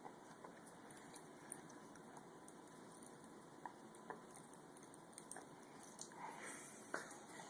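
Faint, irregular crackling pops of Pop Rocks candy fizzing in a baby's mouth, a handful of tiny sharp clicks spread out over a quiet background.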